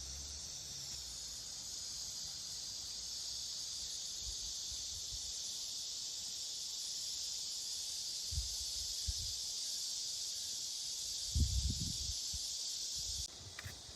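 Steady high-pitched chorus of summer insects, which cuts off abruptly near the end. A few short low thumps come about two-thirds of the way in.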